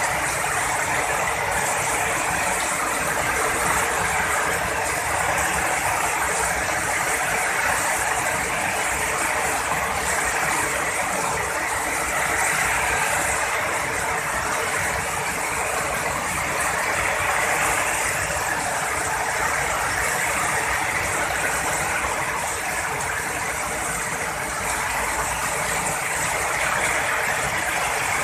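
Heavy rain falling steadily, a dense, even hiss with no thunderclaps.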